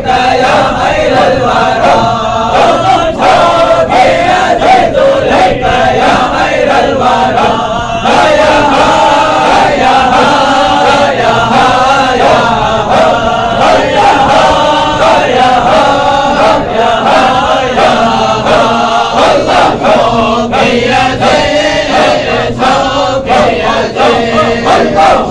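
A group of men chanting loudly in unison in a Halara, a standing Sufi devotional chant, keeping up a continuous, rhythmic recitation.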